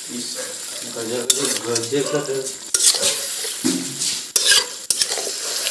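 Metal spatula stirring chicken and onions frying in a metal wok, with a steady sizzle and several sharp scrapes and clacks of the spatula against the pan.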